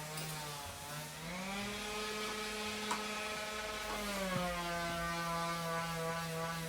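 A steady machine hum with a stack of even overtones. Its pitch rises a little about a second in, holds for about three seconds, then drops back and stays steady, with a few light clicks on top.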